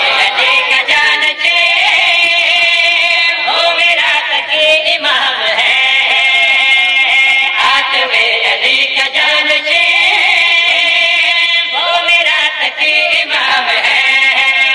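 Music: a devotional qasida opening with a sung melody in long, held notes that slide between pitches.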